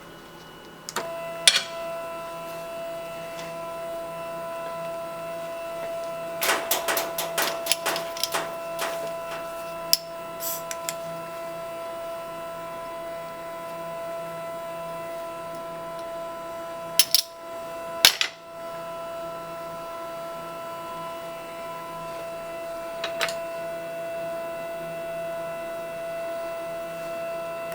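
Micro glassworking lathe running with a steady motor whine as it turns the buret, starting about a second in, with scattered clicks and knocks from the glass and lathe being handled.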